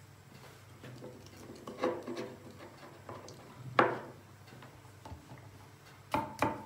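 A few short knocks of a knife on a cutting board, chopping garlic cloves: a soft cluster about two seconds in, a sharper one near the middle and two quick ones near the end.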